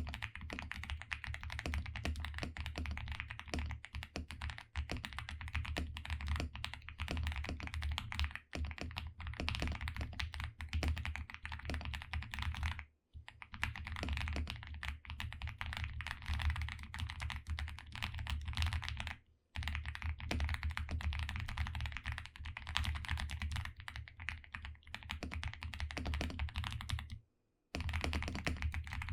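Mechanical keyboard with Gateron Oil King linear switches being typed on quickly and continuously, with three brief pauses.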